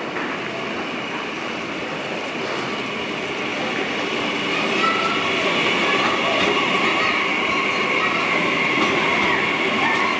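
Red double-deck regional push-pull train pulling into the platform, cab car first: a steady rumble and hiss that grows louder as it comes alongside. From about halfway in, a thin high squeal rides over it.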